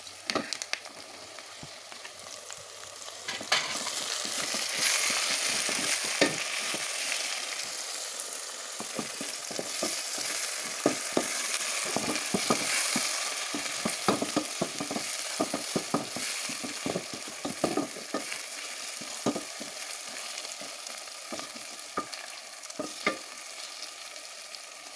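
Onions, green chillies and moong dal frying in oil in an aluminium pot, sizzling, while a spatula stirs and scrapes with frequent light knocks against the pot. The sizzle grows louder about three and a half seconds in, as chopped tomatoes go into the hot oil.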